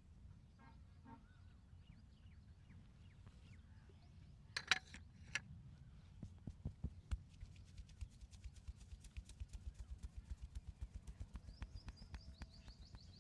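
Hands patting and slapping on skin in a quick, even rhythm during a massage, starting faintly about six seconds in and building to about four or five pats a second. Two sharp clicks come just before, over a low hum and faint high chirps.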